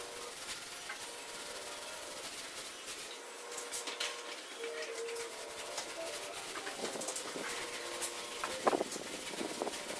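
Paint roller rubbing across a freshly painted wall, then being rolled in the paint tray to reload, with a few light knocks about nine seconds in.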